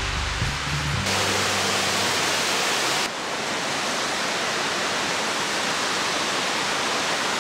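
Steady rushing of Sour Milk Gill, a mountain waterfall running full after two days of rain; quite noisy. Background music ends about a second in, and the rushing dulls a little about three seconds in.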